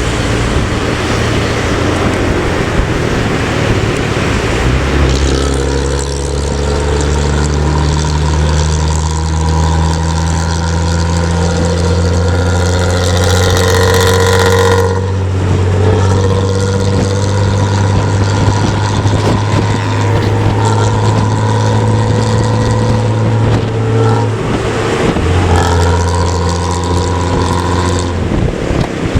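Big diesel bus engine droning at a steady speed on the highway, a deep steady note over road and wind noise, settling to a constant pitch about five seconds in.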